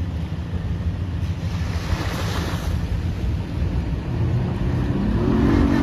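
Fishing boat's outboard motor running as the boat is driven up onto its trailer, with wind buffeting the microphone. About five seconds in, a higher engine note joins briefly, as when the motor is throttled up to push the hull onto the trailer.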